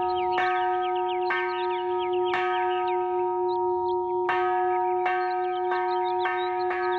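Bronze kansho temple bell struck with a wooden mallet about eight times, the strikes coming quicker after a pause near the middle, each one ringing on in a steady hum into the next. The kansho is rung to open a Buddhist service.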